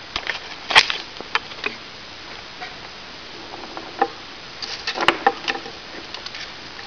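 Black-headed caique playing in a plywood box: scattered clicks, knocks and scratches of its beak and claws against the wood and toys, with a sharp knock about a second in and a cluster of knocks around five seconds in.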